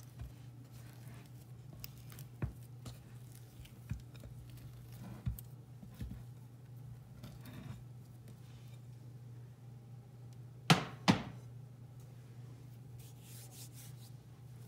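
A glass mixing bowl handled against a granite countertop while sticky dough is scraped out of it by hand: scattered faint knocks and rubs, then two sharp knocks close together about eleven seconds in. A steady low hum runs underneath.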